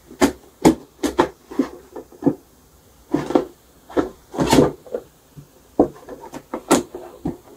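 Parts of a flat-pack shoe box being handled and pushed together in assembly: an irregular run of sharp clicks and knocks, with longer scraping rustles about three and four and a half seconds in.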